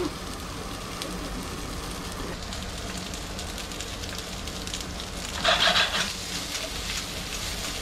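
Diced roasted delicata squash and onions sizzling in a hot skillet, a steady fry, with a short louder burst of noise about five and a half seconds in.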